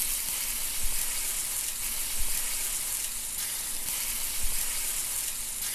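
Food sizzling on a hot griddle: a steady sizzle with a few louder pops, starting abruptly.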